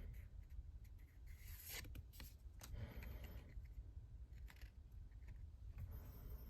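Faint handling of trading-card packaging: small clicks and two brief rustling scrapes, about a second and a half in and again around three seconds in.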